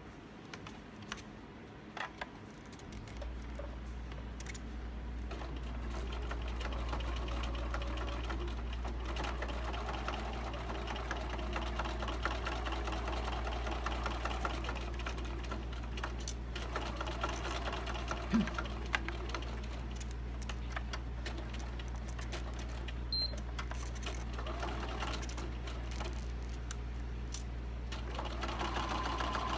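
Computerized electric sewing machine stitching a seam, its motor running at an even speed from about three seconds in, after a couple of light clicks.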